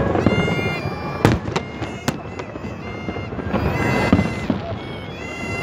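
Fireworks display: several sharp bangs of bursting shells, the loudest about a second in and again near four seconds, with high held whistling tones overlapping them.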